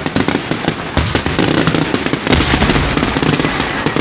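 Firecrackers going off in a rapid, dense string of sharp cracks, many a second, with deeper bangs among them and no pause.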